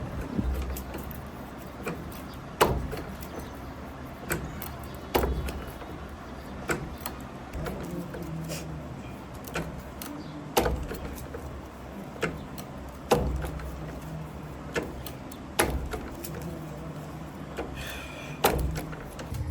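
A series of sharp knocks or taps, roughly one every second or two, over a low steady hum, typical of hand work in a workshop.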